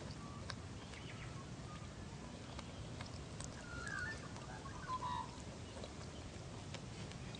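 A koala drinking from a squeezed cycling water bottle, making faint wet clicks over a low outdoor rumble. A couple of short bird chirps come about four and five seconds in.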